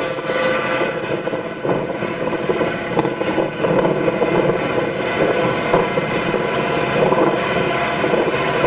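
Engine of a large farm machine running steadily under load.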